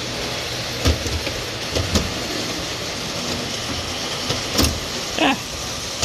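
A few sharp clicks and knocks and a short falling squeak, over a steady hum, as a heavy O gauge model locomotive is handled and set on the track.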